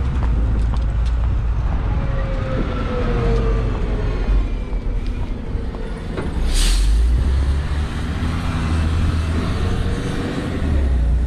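City road traffic with a bus running close by: a steady low engine rumble and a faint whine that rises and falls in pitch, with a short sharp hiss of air about halfway through.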